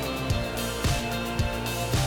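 Background music with a steady beat, about two beats a second over held bass notes.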